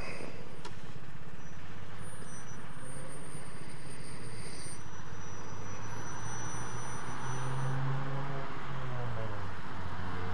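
Vespa scooter engine running slowly in stop-and-go traffic, a steady low engine note that rises and then drops back about eight seconds in, with road traffic around it.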